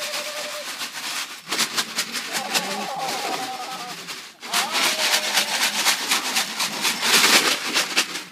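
Airedale Terrier puppies whimpering in a few short wavering whines, over a dense scratchy rustling.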